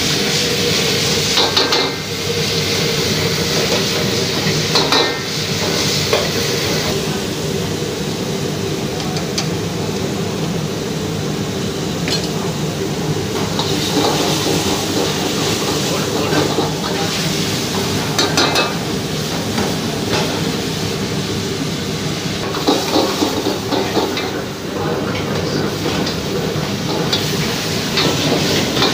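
Stir-frying in a wok over a high gas flame: food sizzling while a metal ladle scrapes and clanks against the wok now and then, over a steady rushing noise from the burner.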